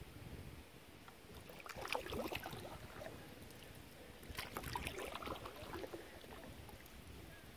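Water splashing and trickling against a canoe's hull as it moves down a river. The splashing comes in two short clusters, about two seconds in and again at four and a half seconds, over a faint low rumble.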